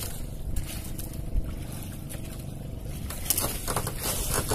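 Outrigger fishing boat's engine running steadily under way, a low even hum, with a few light knocks near the end.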